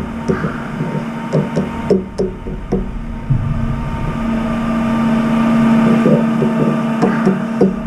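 A crow's bill pecking millet grains from a metal feeding dish: a run of short light knocks, pausing in the middle and starting again near the end. Beneath them runs a steady low hum that swells to its loudest in the middle.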